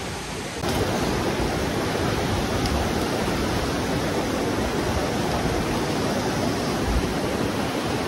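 Steady rush of a fast-flowing mountain stream, which steps up in level just under a second in and then holds steady.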